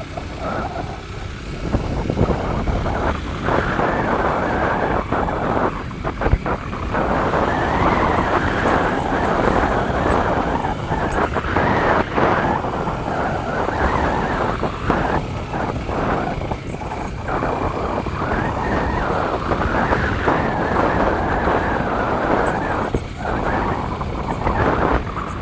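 A vehicle travelling along an unpaved road: a continuous rumble of engine, tyres and wind that rises and dips unevenly with the bumps.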